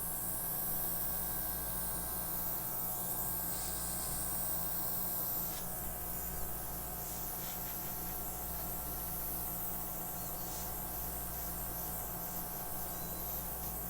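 Small airbrush compressor running with a steady low hum while the airbrush blows a steady hiss of air, used to push wet acrylic paint across a canvas. The hiss swells briefly a few times a few seconds in.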